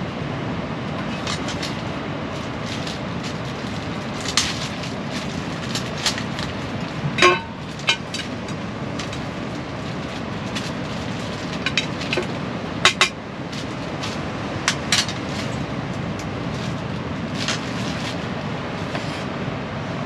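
Cookware and utensils clicking, clinking and knocking as food is prepared at a camp table, with one louder knock about seven seconds in. Underneath, a steady rushing of storm wind and rain on the tent.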